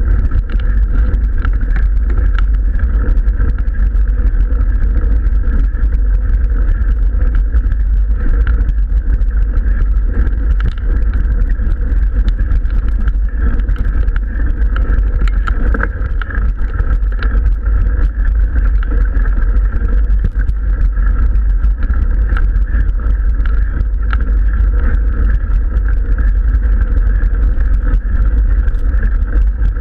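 Mountain bike climbing a gravel road, heard through a bike-mounted action camera: a steady, loud rumble with small crackles and clicks from the tyres and the camera mount throughout.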